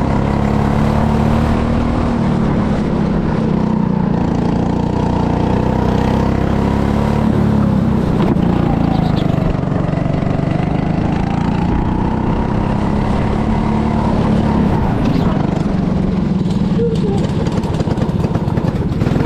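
Go-kart's small engine running at full speed while the kart is driven round the track, its pitch rising and falling as it speeds up and slows through the corners.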